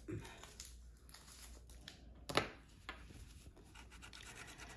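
Quiet room with one sharp knock a little over two seconds in, then the faint scrape of a plastic scratcher tool rubbing the coating off a lottery ticket.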